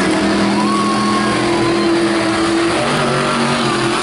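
Son-Uva Digger monster truck's engine running steadily as the truck drives across the arena dirt, over a steady crowd haze.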